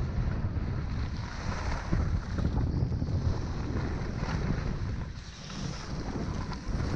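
Wind rumbling and buffeting across a moving skier's camera microphone, with the steady hiss and scrape of skis sliding over packed snow.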